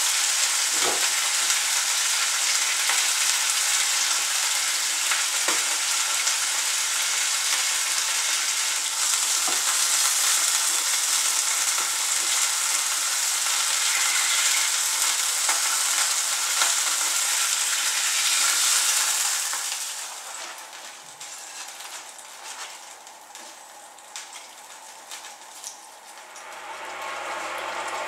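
Chicken pieces sizzling hard in hot oil in a nonstick frying pan, with a few sharp knocks as tongs turn the pieces. About two-thirds of the way through the sizzle drops to a much quieter crackle. Near the end a saucepan of liquid bubbling at a rolling boil takes over.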